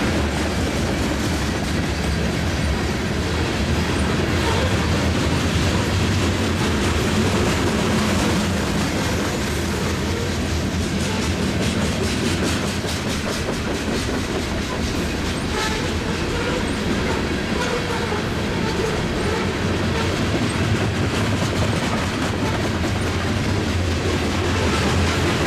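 A freight grain train of covered hopper cars rolling slowly past, its wheels clicking steadily over the rail joints.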